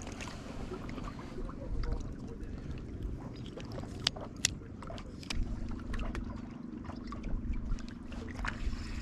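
Water lapping and gurgling against jetty rocks under a low wind rumble, with a few sharp clicks from a spinning rod and reel being handled. A faint steady hum comes in a little past halfway.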